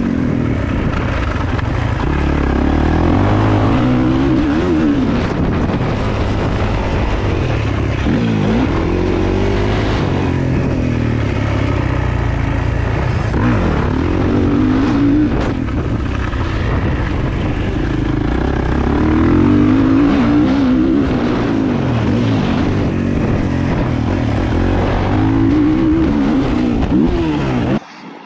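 450cc four-stroke motocross bike engine heard on board, revving up and falling back over and over as it is ridden hard around a dirt track. It cuts off abruptly near the end.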